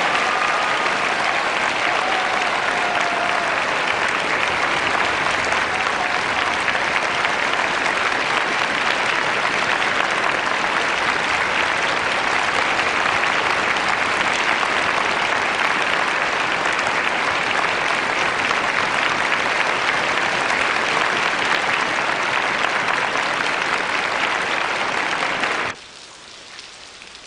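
Large crowd clapping steadily, dense and sustained, cut off suddenly near the end.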